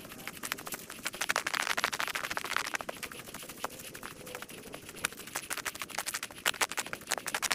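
Sped-up recording of travel along a trail: a dense run of rapid crunching clicks from the path surface, louder about a second in and again near the end.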